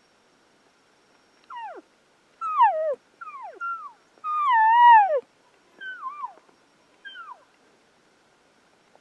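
Elk cow-call mews: a run of about seven short, high calls, each sliding down in pitch, with the longest and loudest about halfway through.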